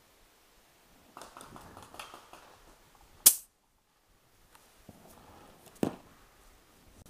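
Handling of a paintball marker on a coiled remote air line: rustling and small clicks, a single sharp pop about three seconds in, and a duller knock near six seconds.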